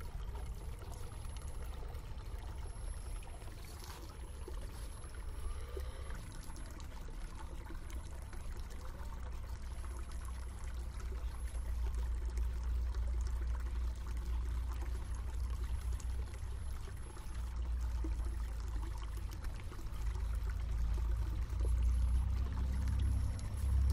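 Water trickling and pouring steadily, with a low rumble underneath that grows louder near the end.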